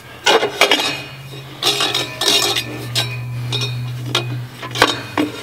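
Steel transmission parts clinking and clanking as a 700R4 sun shell is lowered and seated into the case by hand: a string of sharp metal clicks and knocks, with a steady low hum underneath.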